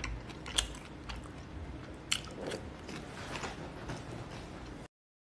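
Faint, scattered clicks and crackles over a low rumble, with two sharper clicks in the first half and the sound cutting off suddenly near the end.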